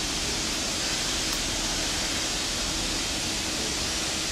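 Steady hiss of falling rain, with a faint steady hum beneath it.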